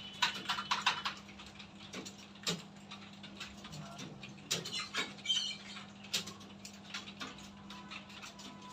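Several computer keyboards being typed on at once: an irregular clatter of key clicks, over a steady low hum.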